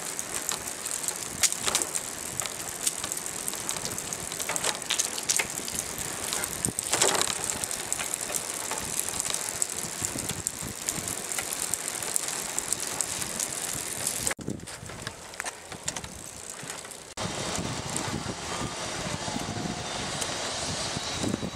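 Bicycle riding noise: freewheel ratchet clicking with rattles and knocks from the bike over a paved path. The sound changes abruptly twice about two-thirds of the way through.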